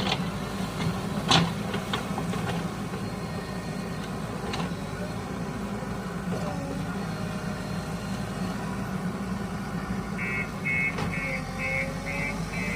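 A heavy vehicle's diesel engine idles steadily, with a few sharp knocks early on. From about ten seconds in, a reversing alarm beeps about twice a second.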